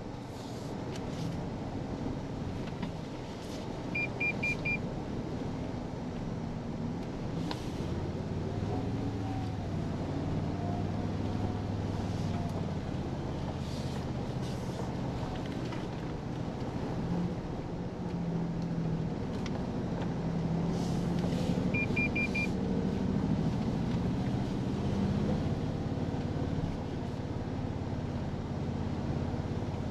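Cab-interior sound of a 2023 Toyota Tundra TRD Pro driving on a dirt trail: a steady low drone from its twin-turbo V6 hybrid powertrain, with tyre noise and occasional knocks and rattles over the bumps. A faint whine rises and falls about a third of the way in. A quick run of four short electronic beeps sounds twice, about 18 seconds apart.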